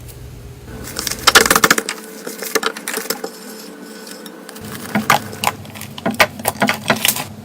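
A blade cutting into dry soap, with crisp crackling clicks as it breaks. There is one burst about a second in and a longer run of clicks from about five seconds on.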